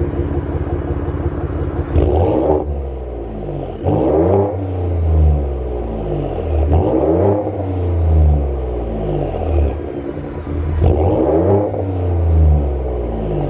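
A 2022 Ford F-150's 3.5 EcoBoost twin-turbo V6 through a Corsa cat-back exhaust, revved while parked: it idles for about two seconds, then is blipped four times. Each rev climbs in pitch and falls back to idle, with a deep exhaust note.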